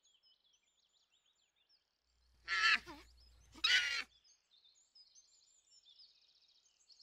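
Two short, loud animal calls about a second apart, over faint high-pitched bird chirping.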